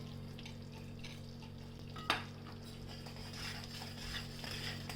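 A spoon stirring and scraping a thick turmeric, jaggery and ghee halwa mixture in a pan, with a faint sizzle of ghee. One sharp scrape or clink comes about two seconds in, over a steady low hum.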